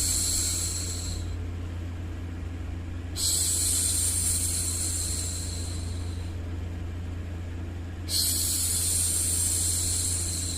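A woman hushing a baby, repeating a long 'shhh' every five seconds or so: one shush fades out about a second in, and two more start sharply about 3 and 8 seconds in. They play over a steady white-noise bed with a low rumble.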